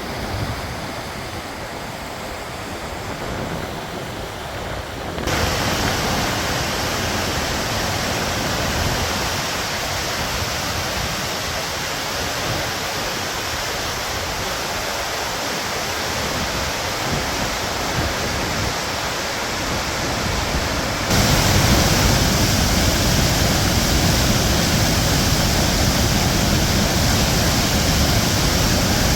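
River water rushing, a steady noise. It jumps abruptly louder and brighter about five seconds in, and again about twenty-one seconds in.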